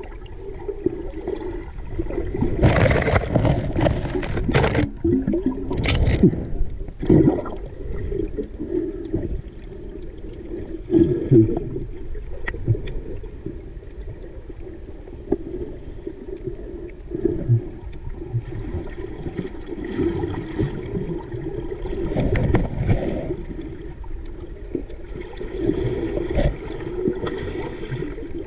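Muffled underwater sound picked up by a submerged camera: a steady low churning of moving water, broken by louder rushes of bubbles and water movement a few seconds in and at irregular intervals after.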